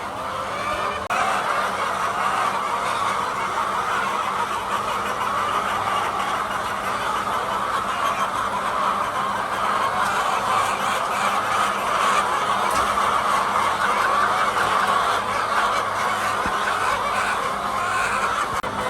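A flock of laying hens clucking all at once, many calls overlapping in a dense, continuous din.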